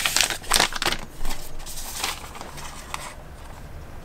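Packaging rustling and crinkling as it is handled, loudest in the first second or so, then fainter.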